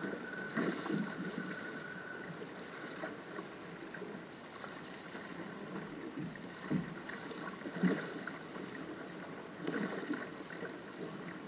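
Water rushing and splashing along the hull of a small single-handed sailing dinghy under way in choppy water, with several louder slaps and splashes as the bow meets waves.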